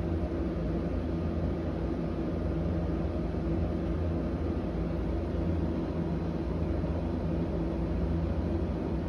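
Steady mechanical hum with a constant low drone and a rushing noise, unchanging throughout.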